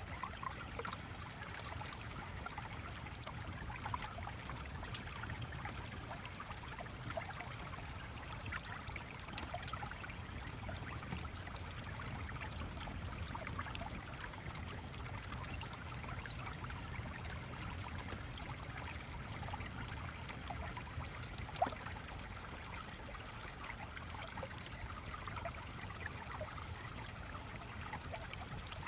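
Small stream running steadily, with a faint low rumble beneath. One sharper click comes about two-thirds of the way through.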